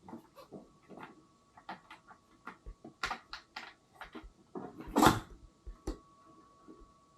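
Irregular clicks, taps and knocks, as of objects being handled, with one louder knock about five seconds in.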